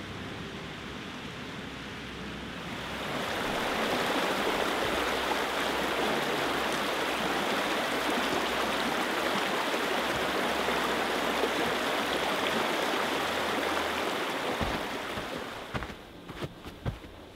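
Rushing water of a stream, a steady noise that swells about three seconds in and fades near the end, with a few sharp clicks as it dies away.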